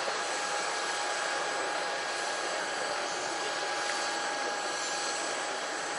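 An aircraft's turbine engine running steadily: a continuous rush with a fixed high whine on top.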